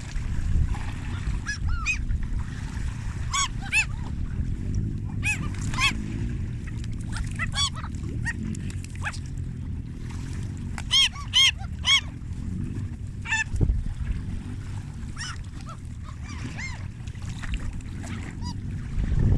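Geese honking: short, arched calls repeated in small groups, the loudest three in quick succession about eleven seconds in. A steady low rumble runs underneath.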